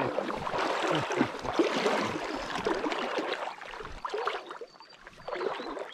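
Shallow lake water splashing and sloshing in irregular bursts as a hooked trout is played in the shallows. It dies down about four seconds in.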